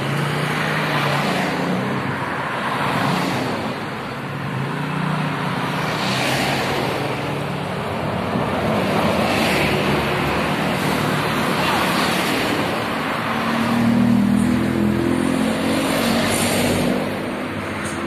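Steady road traffic passing: engines and tyre noise swell and fade as vehicles go by one after another. A heavier engine hum comes in about three quarters of the way through.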